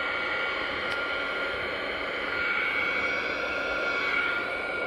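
Sizzix craft heat gun running steadily, its fan blowing hot air with a whirring hiss and a steady high whine. It is aimed at heat-shrink tubing on metal binder rings to shrink it onto them.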